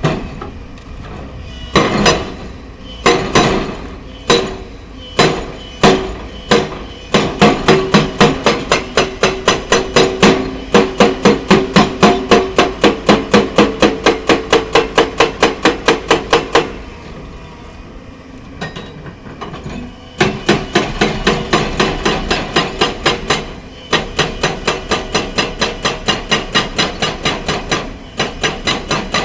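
Hydraulic breaker on a Hyundai excavator hammering limestone rock: a few single blows at first, then a steady run of about three blows a second. The hammering pauses for a few seconds a little past halfway and briefly again near the end, with the machine running steadily underneath.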